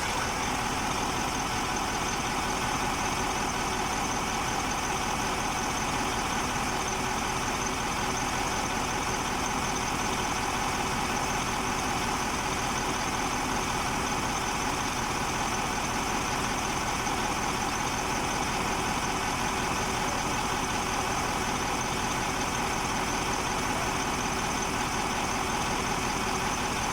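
KamAZ truck diesel engine idling steadily while the injectors' return (leak-off) flow is being measured.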